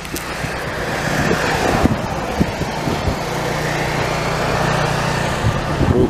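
A motor vehicle running close by: a steady engine rumble and road noise that swells over the first second or two and then holds.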